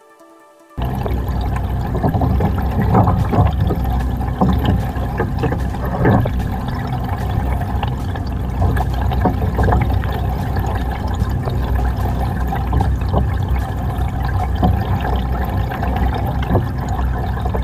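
Muffled underwater sound picked up by a GoPro Hero 5 in its waterproof housing, submerged in an aquarium. A steady, loud low rumble of moving water with scattered clicks and knocks starts abruptly about a second in.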